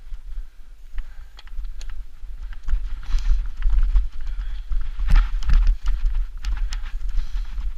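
Mountain bike rattling and knocking over a rough grassy singletrack descent, with heavy wind rumble on the camera microphone. It gets louder partway through as speed builds, with a cluster of hard knocks about five seconds in.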